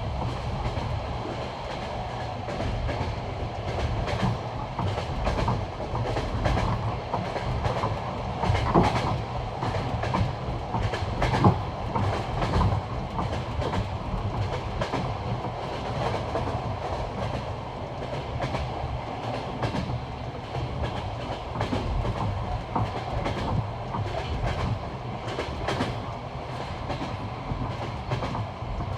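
Passenger train carriage's wheels running over the joints of jointed (bolted) rail track, a steady clickety-clack of wheel knocks over the rumble of the carriage. A couple of louder knocks come about a third of the way in.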